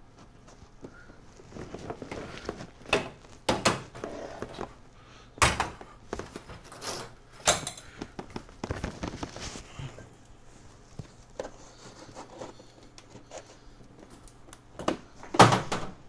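Handling noise as a rover model built on an RC truck chassis with an aluminium box body is carried and put down on a workbench: scattered knocks and thuds with rustling between them, the loudest thump about five seconds in and another near the end.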